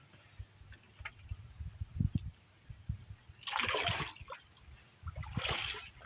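Water splashing and sloshing in two short bursts, about three and a half and five seconds in, after a few low thumps.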